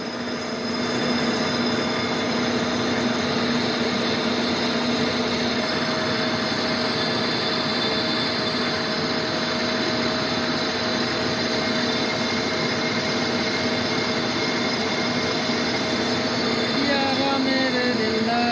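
Lathe running steadily with a brake disc spinning on its spindle while the disc is polished: an even mechanical running noise with a few constant tones over a dense hiss.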